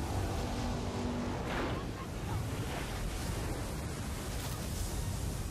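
A surge of floodwater rushing and churning through trees: a dense, steady wash of water noise with no let-up.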